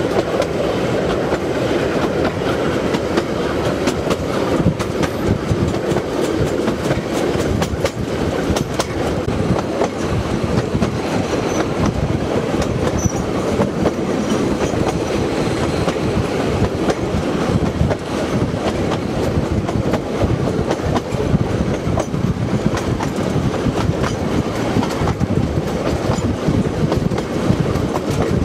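Heritage steam train running along the line, heard from on board an open carriage: a steady rumble with wheels clicking over the rail joints.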